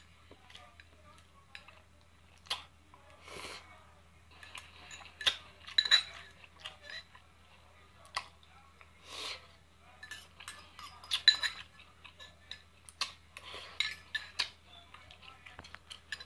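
A metal fork clinking and scraping against a small bowl of cooked greens in a series of short, irregular clicks, with chewing sounds between them.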